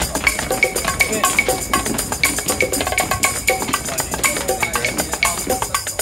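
Background music with a steady, quick percussive beat.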